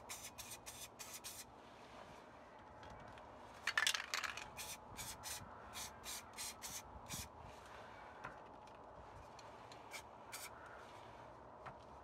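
Aerosol spray paint can spraying in many short hissing bursts, several a second, with a longer, louder burst about four seconds in. The bursts thin out over the second half.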